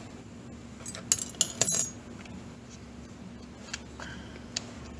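Small metal parts of a milling machine's digital readout scale and its bracket clinking and rattling in a short flurry about a second in, followed by a couple of single light ticks as the bracket is worked into place.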